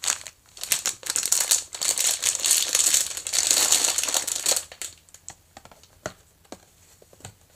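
Plastic packaging crinkling and rustling as a Re-Ment miniature box is opened, for about four and a half seconds, then a few light clicks and taps.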